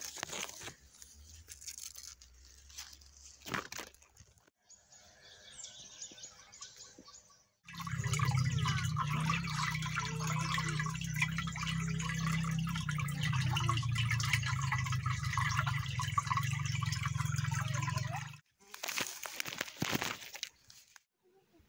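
Fast water rushing down a concrete irrigation canal: a steady rushing with a low rumble under it. It begins suddenly about eight seconds in and cuts off about ten seconds later. The seconds before it hold only faint outdoor sound.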